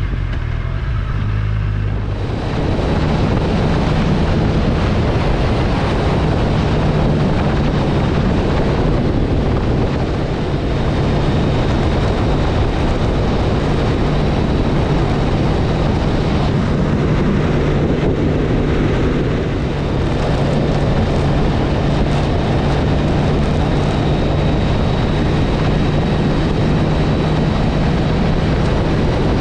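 Motorcycle riding at road speed: a steady engine hum under loud wind rushing over the microphone, the rush swelling about two seconds in.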